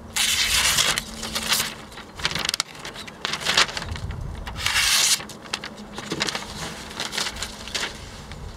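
Knife blade slicing down through a sheet of newspaper in a paper-cut test of its edge, a rush of paper noise in the first second. The loose cut pages then rustle and crinkle as they are handled, with another loud rustle about five seconds in.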